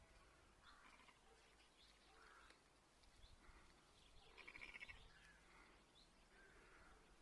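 Faint birdsong: scattered short chirps, with a rapid trilled call about four and a half seconds in that is the loudest.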